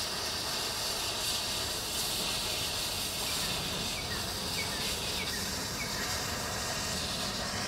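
Fireworks fuse, lit by an electric firing system, burning with a steady hiss that cuts off suddenly near the end as it burns out.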